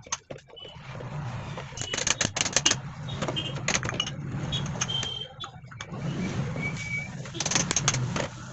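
Metal clicks and clinks from a Tata Super Ace starter motor's brush holder and rear housing as they are handled and fitted together, in quick clusters about two seconds in and again near the end. A steady low hum runs underneath.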